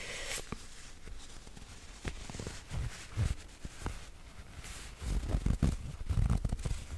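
Hands rubbing and patting stretchy sportswear fabric worn on the body: soft rustling and scratching, with a cluster of low dull thumps in the second half.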